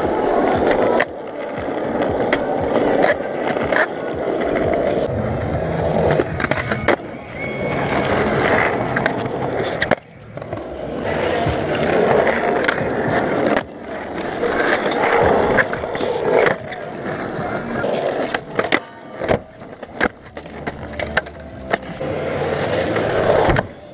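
Skateboard wheels rolling on concrete with a steady rumble that swells and fades, broken by sharp clacks and knocks of the boards.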